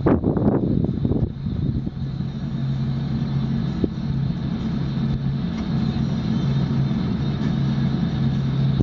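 A vehicle engine idling with a steady low hum. There is a short burst of rustling noise in the first second or so.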